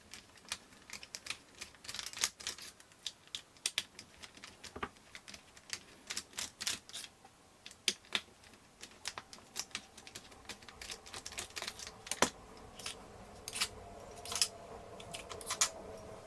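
Irregular light clicks and taps of a small screwdriver and plastic parts as the four screws are taken out of a hobby servo motor's plastic case.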